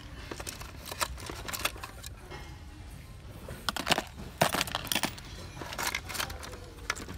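Small fishing tackle clicking and rattling against the plastic trays of a tackle box and a plastic container as gloved hands rummage through them, in irregular clusters of sharp clicks.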